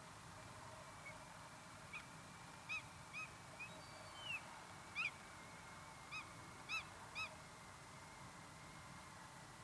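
Common redshank calling: a series of short, clear piping notes, some in quick pairs and threes, with one longer gliding note in the middle.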